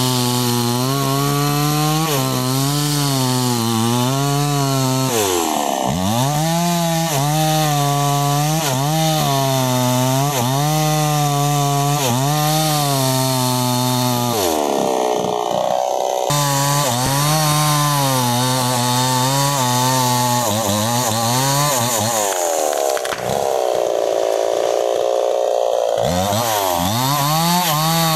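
New West 628 two-stroke chainsaw cutting through a sengon trunk, the engine pitch wavering as the chain loads in the cut. Several times the pitch falls away as the throttle eases, then climbs back to full speed.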